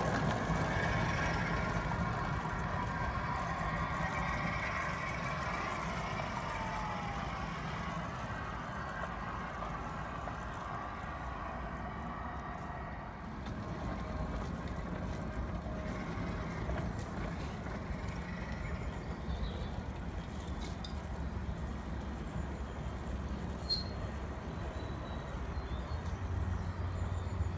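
7¼-inch gauge model Class 47 diesel locomotive running along the track, its running sound getting fainter over the first dozen seconds as it pulls away.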